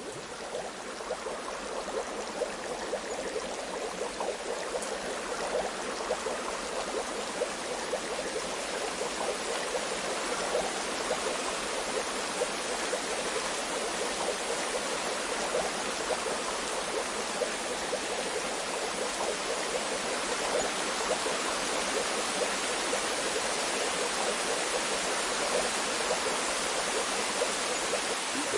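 Bath water bubbling with a steady rush, thick with small gurgles and pops, growing slightly louder over the first several seconds.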